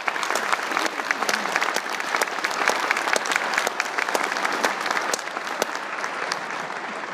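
Audience applauding: many hands clapping in a dense, steady clatter that thins out and begins to fade near the end.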